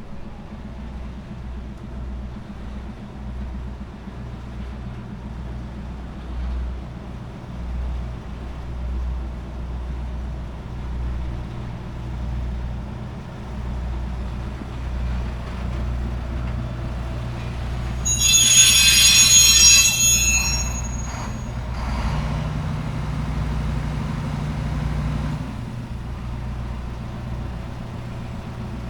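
Diesel train engine running with a steady low rumble, broken about two-thirds of the way in by a loud, high-pitched squeal of steel wheels on the rails lasting about two seconds. A steady low engine note follows for a few seconds.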